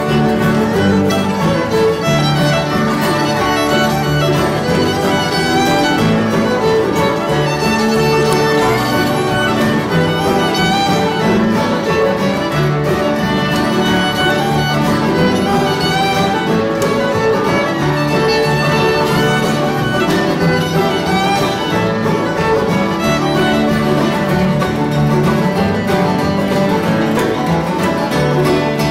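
Live acoustic bluegrass jam: a fiddle carries the melody over upright bass and strummed acoustic guitar rhythm.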